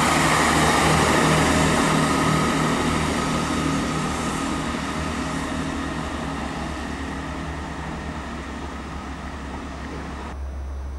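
Diesel multiple unit pulling away, its underfloor engine note and running noise fading steadily as it recedes down the line. A little before the end the sound changes abruptly to a quieter, steady low rumble.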